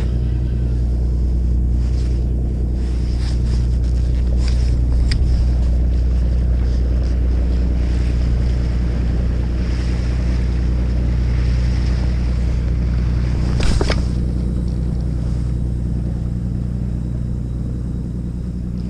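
Steady low drone of an idling engine, with a few faint clicks and one sharper click about fourteen seconds in.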